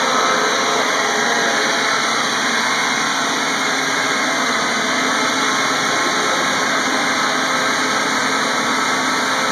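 ETFD2 quadcopter's four electric motors and propellers buzzing steadily as it hovers low.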